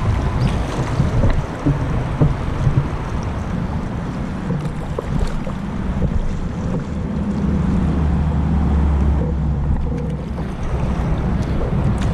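Wind buffeting the microphone of a kayak-mounted camera over the rush of river water around the boat. The low rumble gets heavier for a couple of seconds past the middle, with scattered small knocks throughout.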